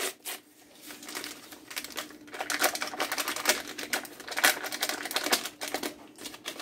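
Paper pouch of instant sugar-free pudding mix rustling and crinkling in quick, irregular clicks as it is shaken and squeezed to empty the powder into a bowl.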